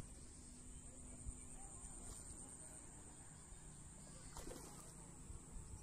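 Near silence: faint outdoor ambience with a steady high-pitched insect hum and a low background rumble.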